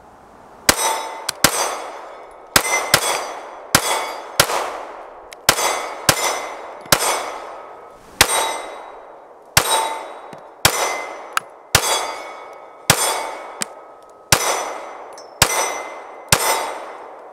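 Glock 26 9 mm subcompact pistol firing a string of about twenty shots at an uneven, quick pace. Each shot is a sharp crack followed by a short ringing decay.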